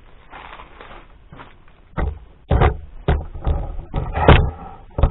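Irregular knocks and clunks of handling, quiet at first, then starting about two seconds in and coming several times a second, some of them loud.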